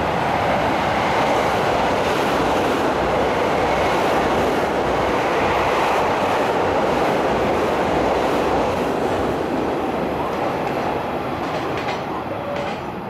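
Container freight train passing through without stopping: a steady rolling noise of the wagons' wheels on the rails, easing off over the last few seconds as the end of the train draws away.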